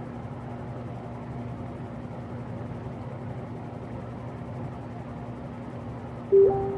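Eskimo Model 2016 16-inch box fan running on its low speed: a steady motor hum with the rush of moving air. Near the end a loud, short ringing tone with a decaying tail sounds over it.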